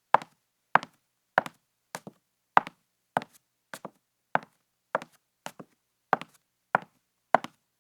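High-heeled shoes walking on a wooden floor at a steady pace, about 13 steps, each a sharp heel click followed by a softer second tap.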